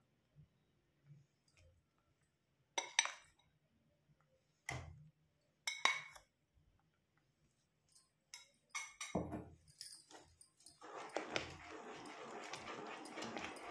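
A few sharp clinks of a steel spoon against a steel pot and bowl as maize flour is tipped into boiling water. From about eleven seconds in, a steady scraping, churning sound of the spoon stirring the flour into the water.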